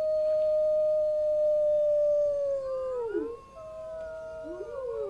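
Several wolves howling together. One long, steady howl slides down in pitch about three seconds in, a second long howl starts soon after, and other howls rise and fall over them.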